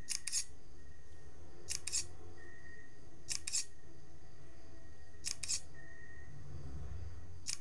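Smartphone held close, giving a sharp double click about every two seconds, like a camera shutter, with a short beep between some of the pairs.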